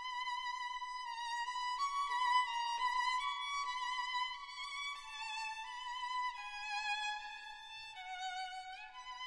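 Background music: a solo violin playing a slow melody with vibrato, moving from note to note every half-second or so, with a low note and an upward slide near the end.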